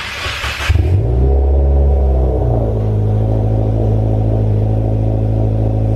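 A car engine: a brief noisy burst, then the engine catches about a second in, rises briefly and settles into a steady, loud idle.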